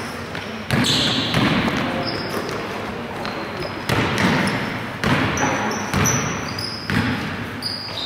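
Basketball dribbled on a wooden gym floor, the bounces landing about once a second and echoing in the hall, with short high sneaker squeaks.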